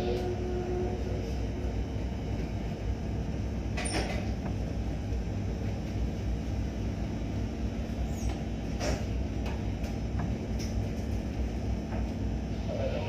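Boat's diesel engine running steadily with a low drone and a constant hum, and a few sharp knocks or clicks about four and nine seconds in.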